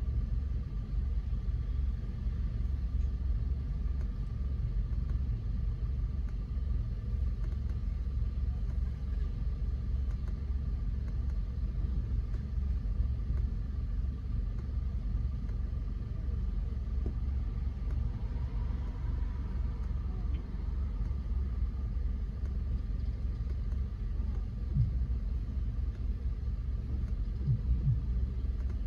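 Car being driven: a steady low rumble of engine and road noise, with a faint steady whine above it.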